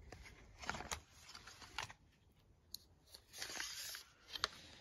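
Quiet handling of a steel tape measure: a few light clicks and knocks, and a short rasp a little after three seconds in.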